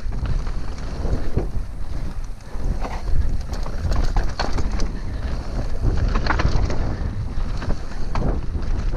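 Wind buffeting the microphone of a helmet or chest camera on a mountain bike riding fast down a dirt trail, with the bike's tyres, chain and frame rattling and knocking over bumps; one sharper knock comes about three seconds in.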